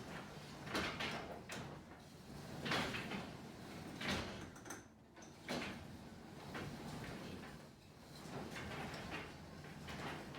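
Sectional garage door being run up and down by hand on new nylon rollers: a fairly quiet rolling rumble with a few knocks, and a brief lull about halfway. The nylon rollers replace worn steel ones and make a big difference in noise level.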